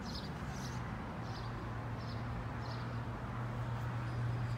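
Street traffic ambience: a steady low hum from cars on the road and in the lot, with short high chirps repeating every half second to a second.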